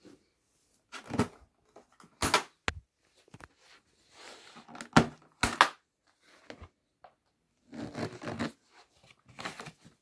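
Hard plastic clicks and knocks with brief rustling from handling a Numatic tub vacuum cleaner as its motor head is unclipped and lifted off the tub. The vacuum motor is not running.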